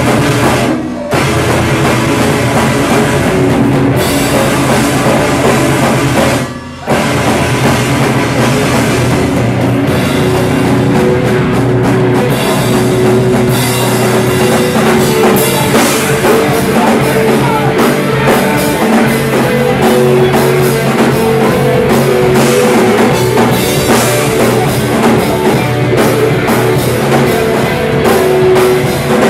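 A live rock band with electric guitars and a drum kit plays loud, heavy music, with brief stops about one second and about seven seconds in.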